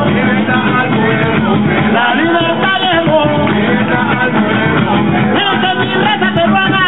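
Latin American dance music with singing, playing steadily.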